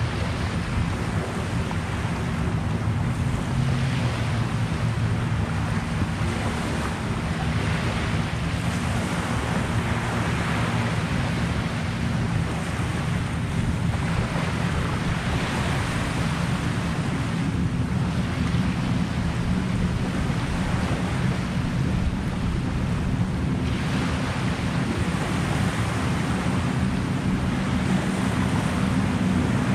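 Wind buffeting the microphone over small lake waves washing on the shore, the wash swelling and fading every few seconds.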